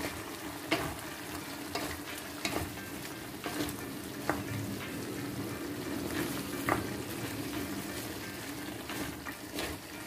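Chicken curry sizzling in a pan while a wooden spatula stirs it, with a steady frying hiss and scattered clicks and scrapes of the spatula against the pan.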